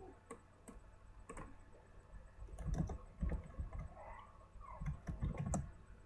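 Typing on a computer keyboard: irregular key clicks, busiest in the second half, used to look up a player.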